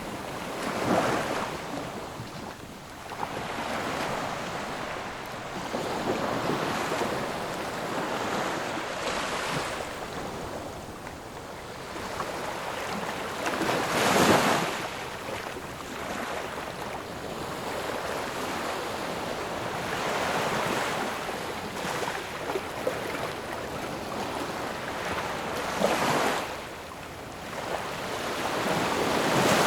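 Ocean waves washing onto the shore in a continuous surf wash, with single waves breaking more loudly about a second in, halfway through, near 26 seconds and again at the end.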